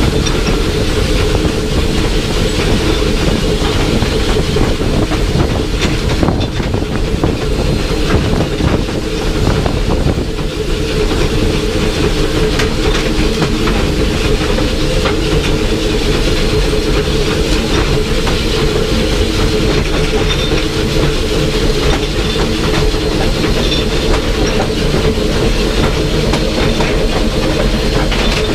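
Copper Range Railroad No. 25 steam locomotive running along the line, heard from the cab: a loud, steady rolling clatter of wheels on track with a continuous rattle of the running gear.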